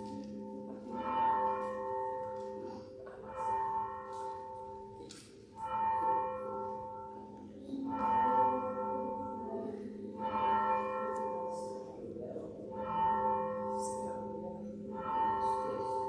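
A single church bell tolling slowly and evenly, about one stroke every two and a half seconds, each stroke ringing on into the next.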